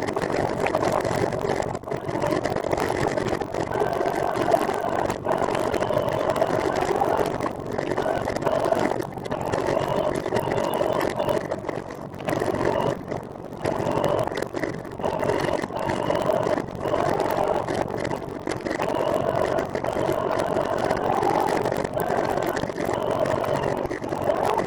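Steady running noise of a trike on the move: a continuous whir of road and riding noise that holds steady, with a few short dips in level.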